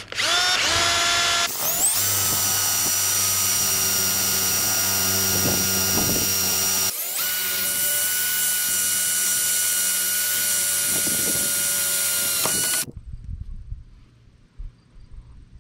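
Power drill spinning up, then running steadily under load with a short break about seven seconds in, and stopping near the end. It is driving screws through wood into a metal frame.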